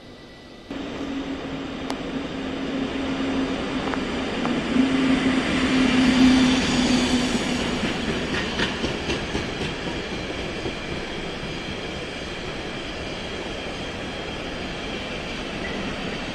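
A container freight train passing at speed. The noise starts suddenly, rises with a low steady hum to its loudest about six seconds in, then settles to an even rumble with some clatter of wheels on the rails as the container wagons roll by.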